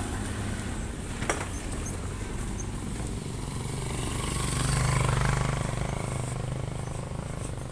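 A motor vehicle passes by, its engine hum growing louder to a peak about five seconds in and then fading away. A single sharp click about a second in.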